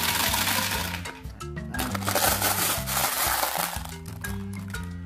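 Glass marbles rattling and clattering as they pour into the plastic hopper and drum of a toy cement mixer truck, in two bursts, then sharp separate clicks of marbles knocking together as they are scooped from a basin near the end. Background music plays throughout.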